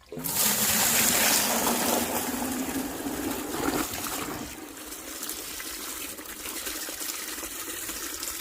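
Water rushing out of a newly connected water hose just after the supply is turned on. It starts suddenly and is loudest for about the first four seconds, then settles to a steadier, somewhat quieter flow.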